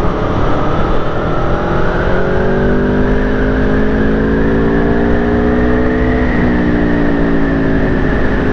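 Aprilia Tuono V4 Factory's 1100 cc V4 engine pulling under light throttle, its pitch rising steadily for about six seconds, then dropping abruptly and easing down slowly.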